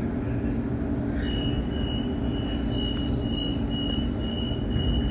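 Sydney Trains electric train running with a steady low rumble. From about a second in, a high thin tone sounds in short repeated pulses over it.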